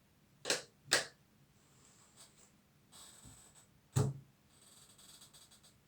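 Two sharp knocks close together, then a heavier thump about four seconds in and a short stretch of rustling, as of small objects being picked up, set down and handled.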